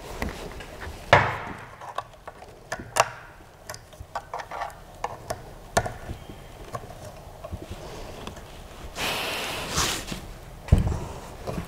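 Parts of a Creality CR-6 SE 3D printer being handled and fitted together: scattered knocks and clicks as the metal gantry frame is set onto the base, the loudest about a second and three seconds in. A rustling scrape around nine seconds in and a heavy thump near the end.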